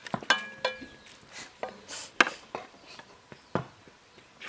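A metal spoon knocking and scraping against a cooking pot as chicken is added, about seven sharp clinks, two of them near the start ringing briefly.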